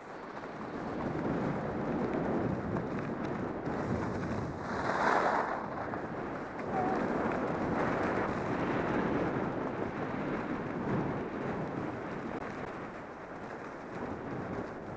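Wind rushing over the microphone and skis hissing and scraping over groomed snow during a downhill run, with a louder swell about five seconds in.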